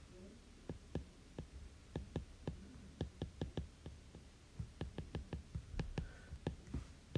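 Stylus tip tapping and clicking on a tablet's glass screen during handwriting: an irregular run of small, sharp taps, several a second.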